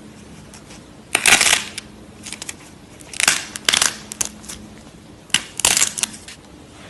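Slime being squeezed and worked by hand, crackling in three bursts about two seconds apart.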